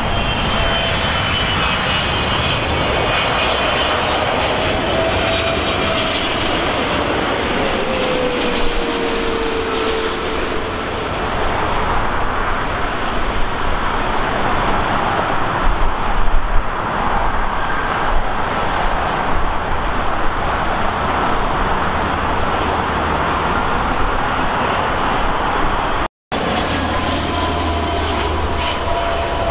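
Jet airliner passing close, its engines running loud, with a whine that slides down in pitch as it goes by. The sound breaks off for a moment near the end.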